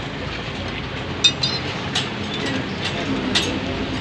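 Steady street traffic noise with a few short, sharp clicks and knocks. A low steady hum sets in about three seconds in.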